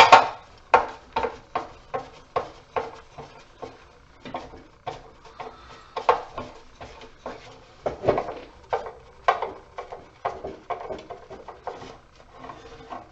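Irregular knocks and clanks of metal scrap being handled and pulled apart, about one or two sharp strikes a second, some ringing briefly, fading a little near the end.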